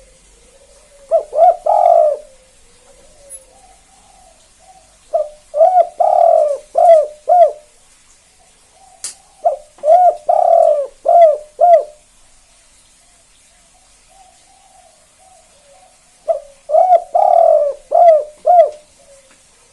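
Spotted dove (tekukur) singing its 'kuk 2' song: four loud cooing phrases of several notes each, with softer coos in between.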